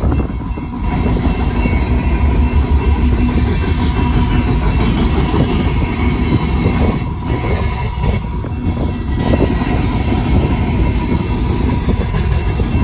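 Freight train's boxcars and refrigerator cars rolling past at a grade crossing: a steady rumble with the wheels clacking over the rail joints.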